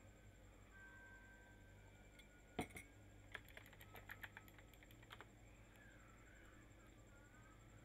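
Computer keyboard typing: one louder click about two and a half seconds in, then a quick run of about a dozen keystrokes over the next two seconds.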